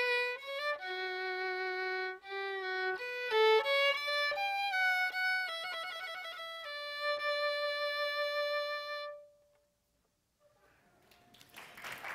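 Solo violin playing a slow melody one note at a time, some notes with vibrato, ending on a long held note about nine seconds in. After a brief silence, applause starts and grows near the end.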